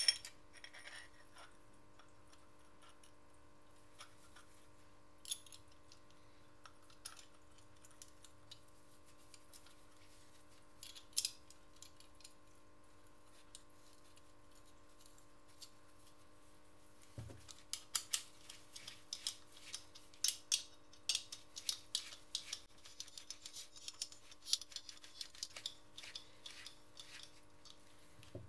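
Steel clutch parts of a Simson S51 engine clicking and clinking as they are handled and fitted together by hand: a few scattered clicks at first, then frequent clinks in the last ten seconds, over a faint steady hum.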